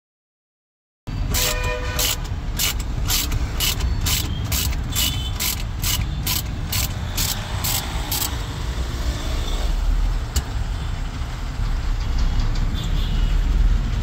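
Ratchet wrench clicking, about two to three clicks a second, as it is swung on the steering-wheel centre bolt. The clicks begin about a second in and stop about eight seconds in, over a steady low traffic rumble.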